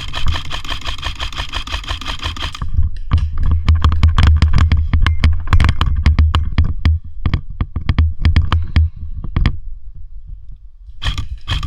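Footsteps crunching and snapping through woodland leaf litter and twigs, with gear rattling and a heavy low rumble of movement and wind on the body-worn microphone. A buzzing tone runs through the first couple of seconds.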